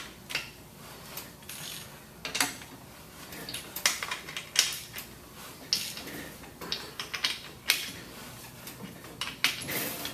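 Hand ratchet wrench clicking in short, irregular runs, with metal clinks, as the bolts on a stainless-steel pump motor are snugged down.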